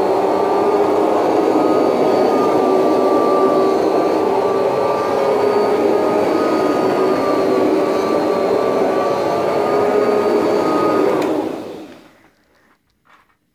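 Kirby Heritage 2 vacuum with its Rug Renovator shampoo attachment running steadily, a motor whine over a rushing of air. About eleven seconds in it stops, dying away over about a second.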